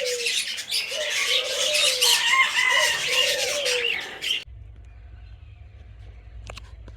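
Aviary parrots chirping and squawking together, with a repeated low cooing call rising and falling about once a second. About four and a half seconds in it cuts off abruptly to a quiet low hum with a couple of clicks.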